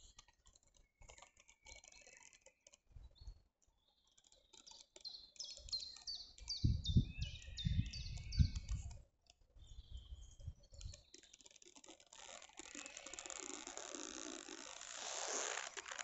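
A songbird singing a phrase of about ten short, high, falling notes, among soft clicks and low thumps of handling. Near the end a rustling swells up.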